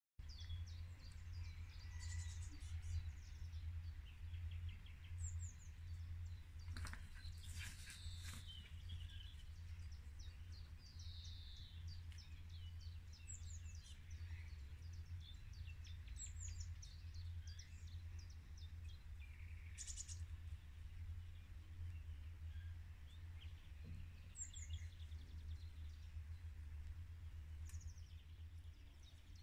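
Several songbirds singing and chirping throughout, short trills and calls overlapping, over a steady low rumble.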